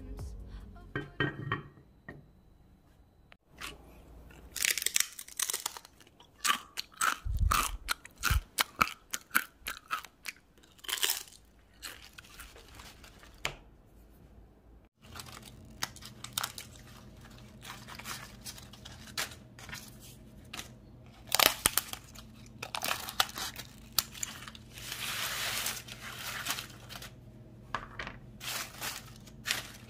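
Crisp air-fried snacks crunching, the seaweed chips (gim-bugak) and the roasted dried pollock skin: runs of sharp, dry crackles and snaps, with quieter gaps between.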